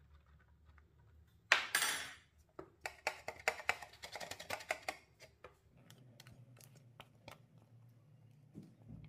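Flour-dusted metal tart pan being shaken and tapped against the countertop to spread the flour and knock out the excess: a loud rattling rush about a second and a half in, then a quick run of taps for a few seconds.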